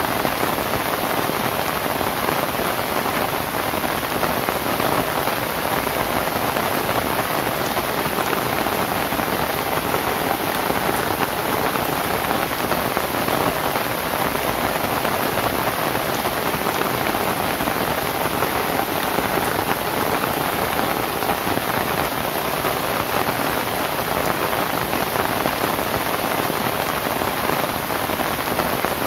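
Steady rain falling on a thatched roof of dried lontar palm leaves, a dense, even hiss of drops that holds constant throughout, with no thunder.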